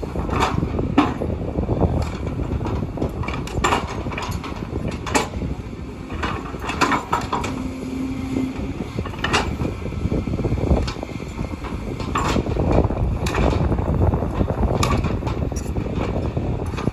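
Kobelco excavator running with a steady low rumble, broken by many irregular sharp clanks and knocks from the machine at work.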